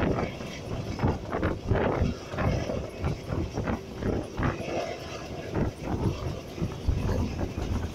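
Running noise of a moving passenger train heard from inside a coach: a steady rumble with irregular knocks of the wheels on the rails, mixed with wind.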